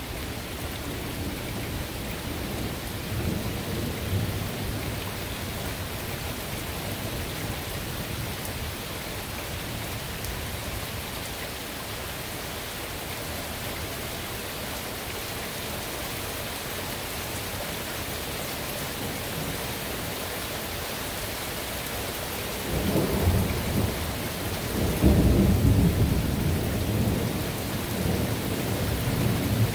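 Thunderstorm: steady rain hiss with rolling thunder. A faint low rumble runs through the first few seconds, and about three-quarters of the way in a long, louder rumble builds and swells twice before dying away.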